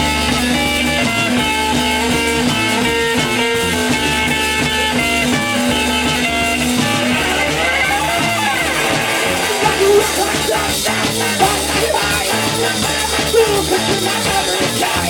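Live punk-rock band playing: electric guitar, bass guitar and drums. A steady repeated guitar pattern over bass and drums gives way about halfway through to a pitch glide, then to choppier playing with sharp, loud drum hits.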